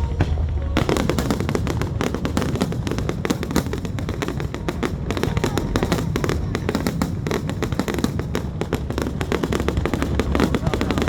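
Fireworks display: a few sharp cracks, then from about a second in a dense, rapid run of crackling bursts over a steady low rumble.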